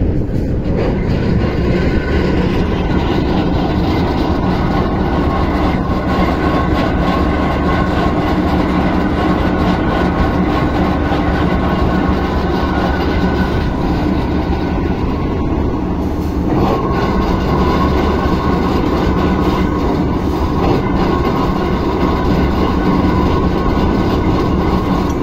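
Diesel railway crane's engine running steadily while it hoists railway wheelsets, with scattered light metallic clicks and clanks.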